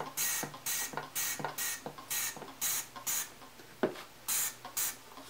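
Trigger sprayer of Dawn Powerwash dish spray squirting into a small engine gas tank: about ten quick hissing squirts, roughly two a second, with a short pause and a single knock a little past the middle.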